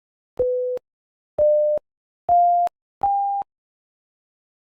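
Four short electronic beeps from a C++ program's Beep() calls, each a pure steady tone about half a second long with a gap between, stepping up in pitch one after another.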